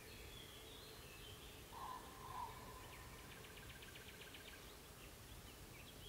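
Nightingale singing faintly: two low full notes about two seconds in, then a fast, even rattle of about seven dry clicks a second lasting nearly two seconds, with short high notes before and after.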